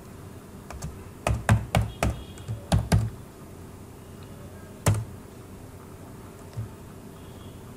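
Keystrokes on a computer keyboard: a quick run of key presses in the first three seconds, then a single keystroke about five seconds in, the Enter key taking the cursor to a new line.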